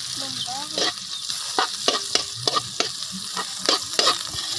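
Ginger, garlic and onion sizzling in hot oil in a metal wok as a metal spoon stirs them, scraping and clinking against the pan in repeated short strokes.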